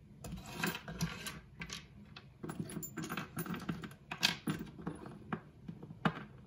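Small metal charms and letter tiles clicking and clinking irregularly as a hand sorts and slides them around a wooden tray, a few clicks sharper than the rest.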